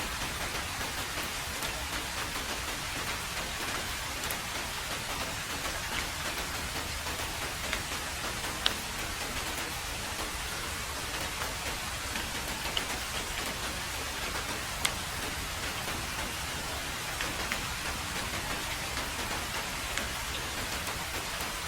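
Heavy rain falling on a road: a steady, even hiss of rainfall with a few louder single drop splats scattered through it.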